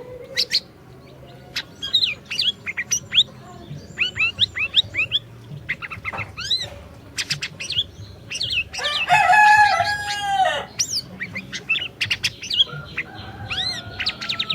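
Siri-siri songbird singing: a rapid string of short, sharp chirps and quick whistled notes, interrupted about nine seconds in by one louder, harsher call lasting about a second and a half.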